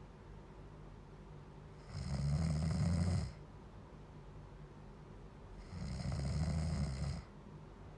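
A person snoring loudly: two long snores about four seconds apart, each lasting about a second and a half, with much quieter breathing between them.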